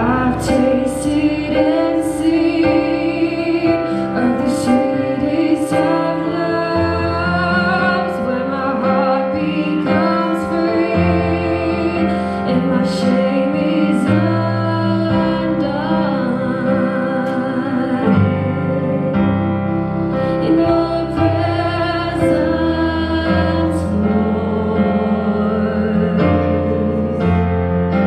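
Two women singing a worship song in long, wavering held notes, accompanied by chords on a Yamaha electric keyboard.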